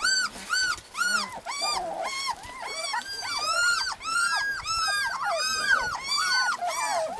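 A litter of husky puppies whining: short high cries that rise and fall, several overlapping, about three or four a second.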